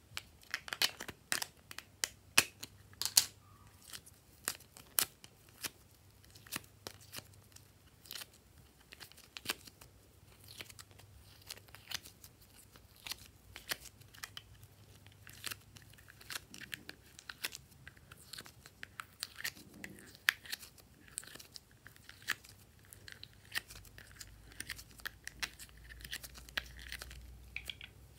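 Small plastic slime containers being handled and opened, and soft purple slime being pulled out of them and torn and stretched by hand: a run of irregular sharp clicks and crackles, the loudest ones in the first few seconds.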